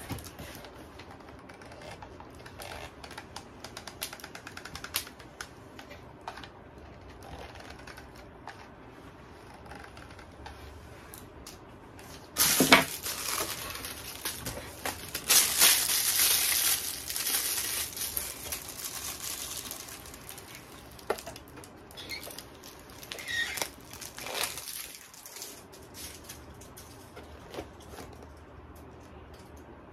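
Light clicks and taps of a hot glue gun and foam board being handled. About twelve seconds in comes a loud rustling scrape lasting several seconds, as a piece of plastic is rubbed along the glued seams, followed by a few shorter scrapes.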